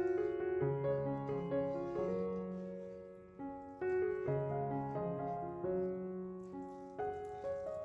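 Background piano music: a gentle melody over held bass notes, with a new note struck every half second or so.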